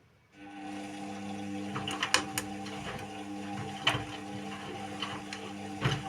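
Indesit WIU 81 washing machine starting up about half a second in: a steady motor hum with several fixed tones, broken by irregular clicks and knocks, during its quick 30° wash programme.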